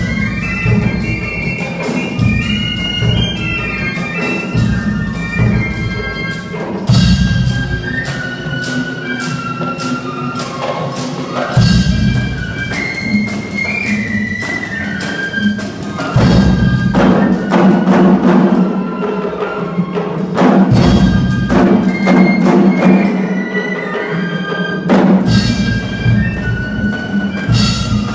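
Live cadet band of brass and woodwind instruments with drums playing a piece: a high melody steps along over the band, which swells into louder full passages with drum hits several times.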